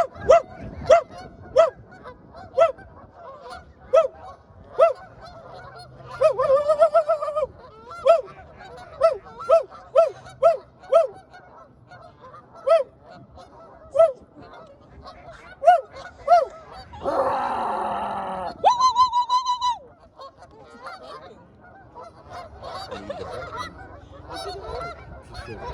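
Geese honking repeatedly in short, loud honks, roughly one a second and at times in quick runs, with one longer drawn-out honk. About two-thirds of the way through, a harsh, rasping sound lasts a second or so, followed by a steady, higher-pitched call.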